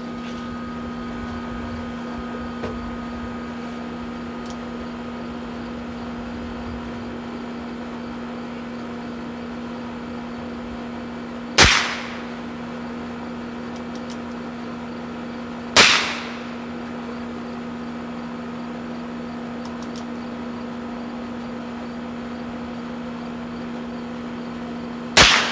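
Three single shots from a Heritage Rough Rider single-action .22 revolver with a 6.5-inch barrel. The first comes about halfway through, the second about four seconds later and the third near the end, each a sharp crack with a short tail, over a steady low hum.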